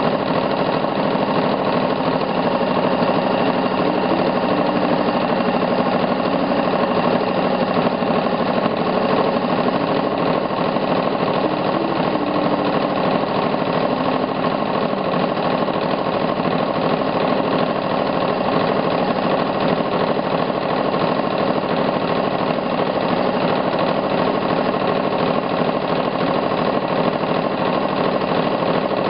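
Elna 6600 home sewing machine running steadily without a pause, the needle stitching through a quilt sandwich in free-motion quilting.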